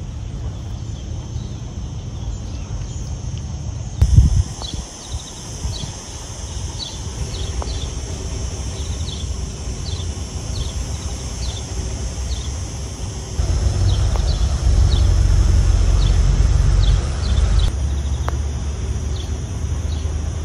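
Outdoor ambience: short chirps repeating about once or twice a second over a steady high insect buzz, with a low rumble underneath that grows louder about two-thirds of the way in. A single thump comes about four seconds in.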